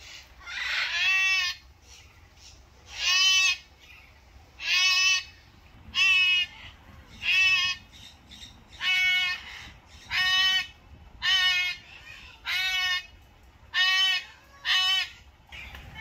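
A captive parrot calling over and over: eleven loud calls, each under a second and wavering in pitch, about one every second and a half.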